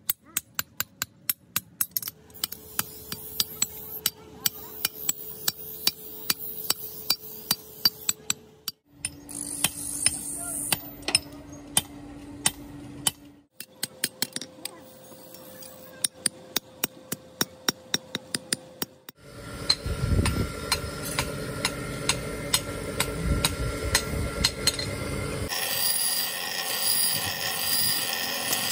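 Hand hammer striking a leaf-spring steel axe head on a steel anvil in quick, steady blows, about three a second, with a ringing tone under them. One stretch has a loud low rumble beneath the blows. Near the end a bench grinder runs, grinding the axe blade.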